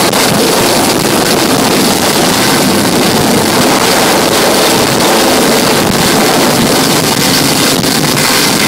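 A loud, steady rush of wind from a hovering helicopter's rotor downwash buffeting the microphone on a moving boat's deck, with the helicopter's and boat's engine noise mixed in.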